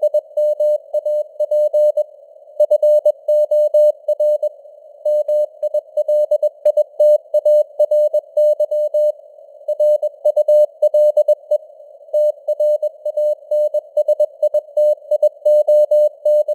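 Morse code (CW) at 21 words per minute: a single mid-pitched tone keyed on and off in dots and dashes, with gaps between letters and words. It sits on a steady narrow band of simulated radio static, and the signal fades up and down.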